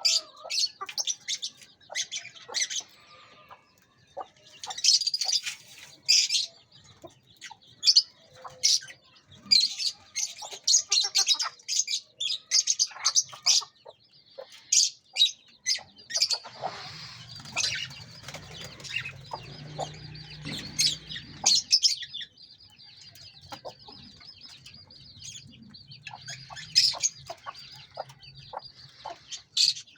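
Many birds calling at once, a dense run of short, sharp, high chirps and clucks, with some wing flapping.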